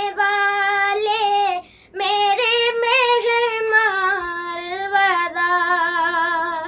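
A boy singing an unaccompanied Urdu naat bidding farewell to Ramadan, in long held notes with gliding ornaments. He pauses briefly for breath about one and a half seconds in, and the singing stops at the very end.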